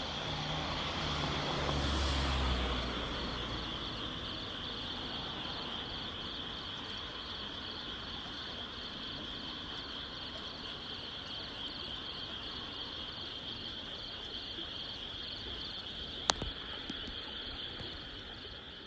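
A chorus of frogs calls steadily as a high, evenly pulsing trill. A vehicle passes about two seconds in, and there is a single sharp click near the end.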